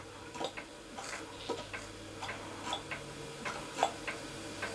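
Faint, irregular light ticks and clicks from a small model steam engine's copper boiler heating over a gas burner, the sign that it is coming up to steam, over a low steady hum.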